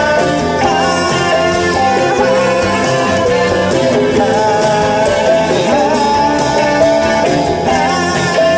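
A live band playing a song with a steady beat, guitars and a singing voice.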